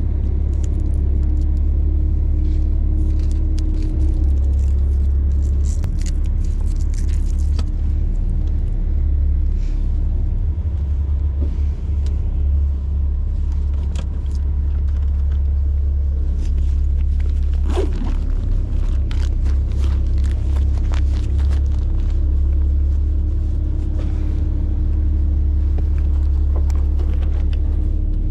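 Fishing boat's engines running with a steady low rumble while warming up, with scattered light knocks and clicks on deck.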